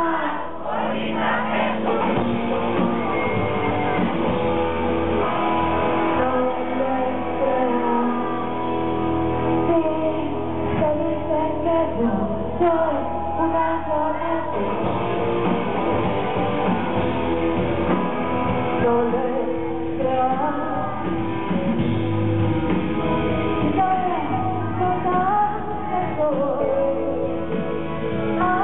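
Live rock song: a woman singing over electric guitar and band, heard from the audience in a large hall.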